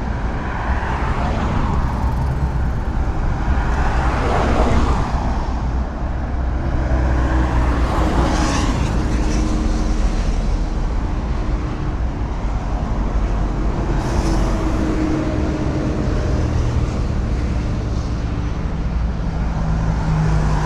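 Highway traffic: a steady rumble of tyres and engines, with single vehicles swelling past every few seconds, the loudest about four to five seconds in and again about eight seconds in.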